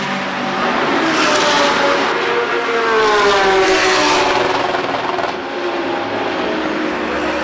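GT3 race car engines running hard as cars pass at speed. One car passes loudest about three seconds in, its engine note falling in pitch as it goes by.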